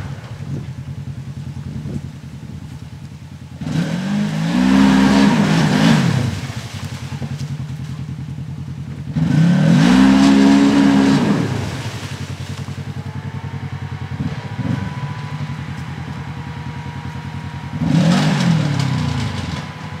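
Polaris RZR XP 900 side-by-side's twin-cylinder engine idling with a steady pulse, then revved hard three times, each rev rising and falling in pitch.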